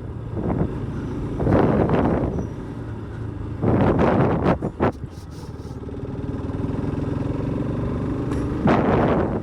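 Motorcycle engine running steadily while riding, with three louder rushes of noise over it, about two, four and nine seconds in.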